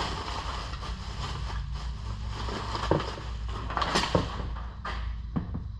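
The new and old alternators being handled and set out for comparison: rustling and a few sharp knocks about three and four seconds in, over a steady low hum.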